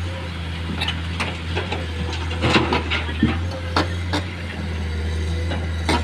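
Komatsu PC210 excavator's diesel engine running steadily, with sharp knocks and clatter of rock dropping into a steel dump-truck bed, a cluster of them in the middle and one more near the end.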